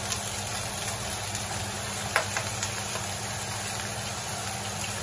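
Minced ginger and garlic sizzling steadily in hot oil in a wok, over a steady low hum, with a faint click about two seconds in.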